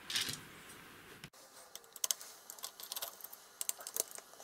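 A run of light clicks and taps from hands working a plug-in amplifier module loose from its base unit.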